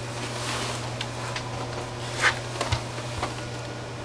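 A steady low hum with a few light clicks and knocks over it, the loudest a little past two seconds in.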